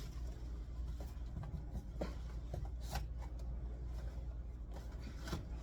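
Faint rustling and light clicks of pantry items and packaging being handled and moved, over a steady low room hum.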